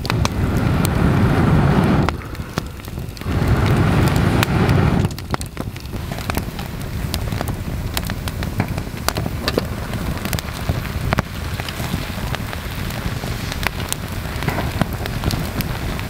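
Wood campfire crackling and popping, many sharp snaps over steady heavy rain. Two loud low rushes of noise fill the first five seconds.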